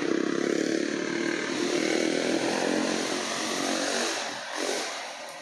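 A small petrol engine running steadily, then dropping in pitch and fading about four seconds in.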